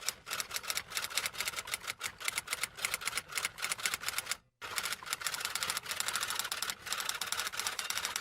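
Rapid typewriter keystrokes clattering in a fast, uneven run, with a short break about halfway through.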